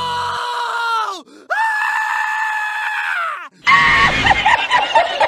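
A cartoon donkey screaming: two long held screams, each dropping in pitch at the end. From about three and a half seconds in they give way to a loud, jumbled cartoon commotion of noise and short squeals.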